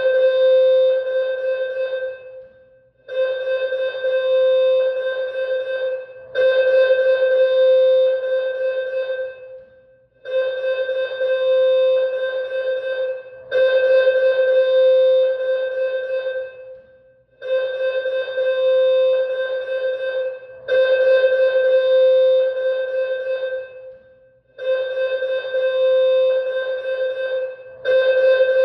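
School alarm sounding in a warning loop: a steady ringing tone of fixed pitch lasts about three seconds, breaks off briefly, and starts again, repeating about every three and a half seconds.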